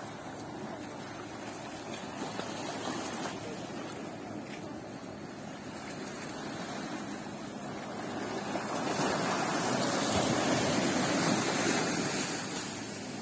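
Sea surf breaking and washing up on a beach, steady rushing water with one wave building louder about eight seconds in and easing off near the end.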